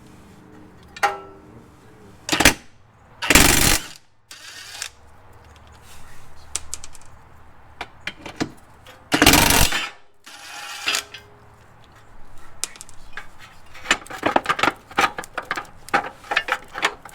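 14mm socket tools working the bolts of a Subaru WRX's rear transmission crossmember: two short, loud rattling bursts about three and nine seconds in, scattered metal clicks, then a fast run of ratchet-like clicking in the last few seconds.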